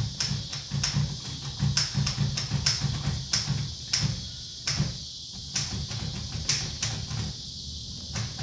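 Typewriter keys being struck by hand: sharp, irregular clacks about two a second, over a steady low hum and hiss.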